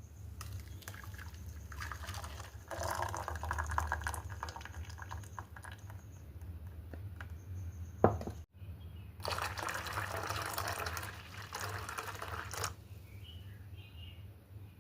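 Liquid being poured, in two spells of a few seconds each, with a single sharp knock just after eight seconds, over a steady low hum.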